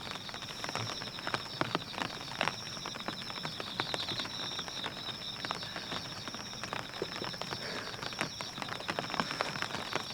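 Heavy rain falling on a tent, with many sharp ticks of single drops hitting the fabric and a steady high trill running underneath.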